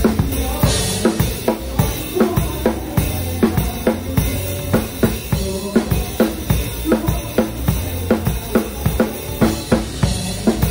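Drum kit playing a steady rock beat along with a recorded pop-rock song: regular kick and snare hits, about two a second, with hi-hat and cymbals, over the song's bass and backing track.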